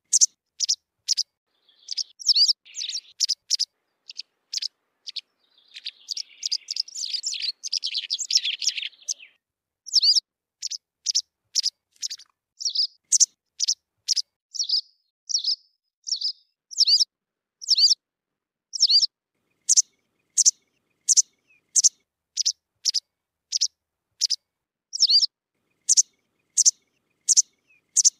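White wagtail calling: a run of short, high, sharp call notes, about one a second, with a denser twittering passage a few seconds in.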